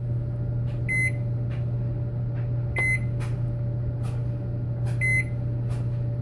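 A steady low electrical hum with a short, high electronic beep three times, about two seconds apart.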